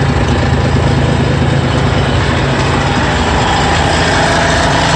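1986 Mercedes-Benz Unimog's diesel engine idling steadily.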